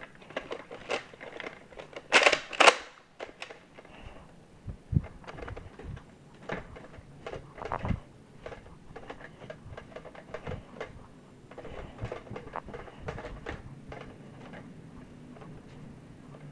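Scattered clicks, taps and knocks of someone moving about and handling gear, with two louder knocks close together about two seconds in.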